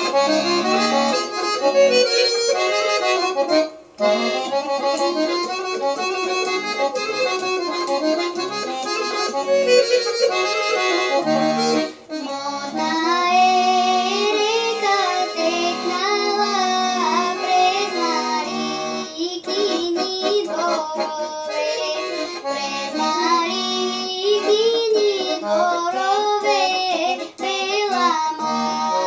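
An accordion plays a Bulgarian Rhodope folk tune alone for about twelve seconds, with a brief break near four seconds. Then a young girl's voice comes in, singing the folk song in long, ornamented lines over the accordion.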